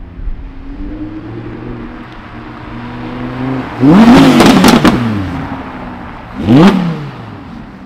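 Second-generation Audi R8's 5.2-litre V10 pulling away at low revs, then revved hard for about a second, rising and falling in pitch, and revved again briefly about two seconds later.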